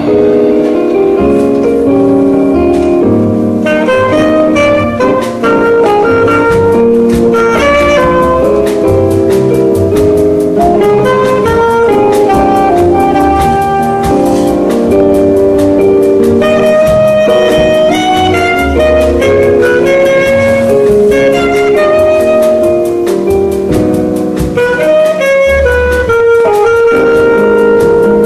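Small jazz band playing live: a saxophone carries the melody over piano and drum kit, with cymbals ticking throughout and a low bass line beneath.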